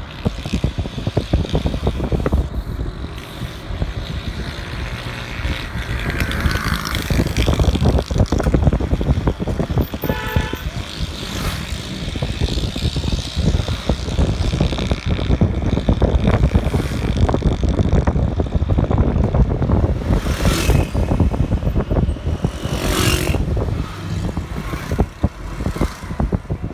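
Continuous rumble of a vehicle driving along a busy street, with engine and road noise and fluttering buffeting on the microphone. A short horn sounds about ten seconds in, and a couple of louder surges come near the end, as of passing traffic.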